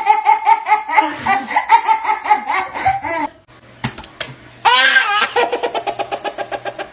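Baby laughing in quick, repeated bursts. After a short pause about three and a half seconds in, a second baby's laugh starts with a high, wavering call and runs on in rapid bursts.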